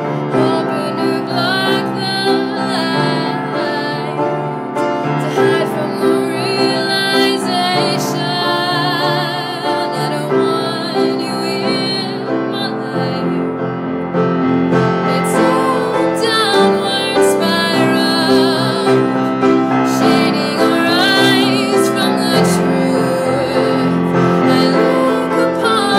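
A song with piano accompaniment, a female voice singing held notes with vibrato. About halfway through, a deeper, fuller accompaniment comes in and the music gets a little louder.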